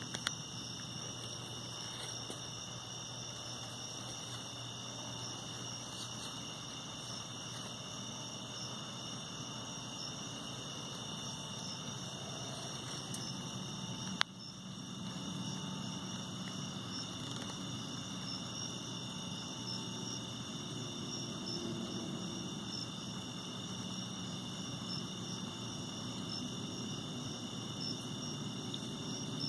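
Steady chorus of night insects, a constant high-pitched trilling. A single sharp click about halfway through.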